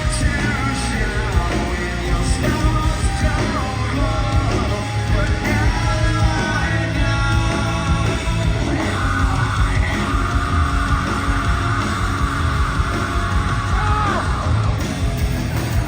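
Post-hardcore band playing live, with distorted guitars, bass and drums under sung and yelled vocals. About nine seconds in, a long held high note sustains, then bends down and stops; the music drops away at the very end.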